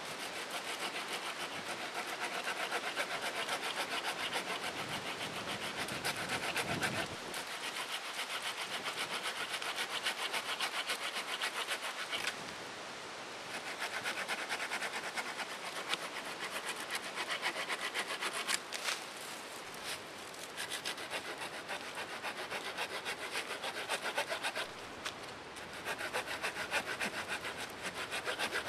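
Small handheld pruning saw blade cutting through a downed branch about 2.5 inches thick, in rapid back-and-forth strokes with a few brief pauses.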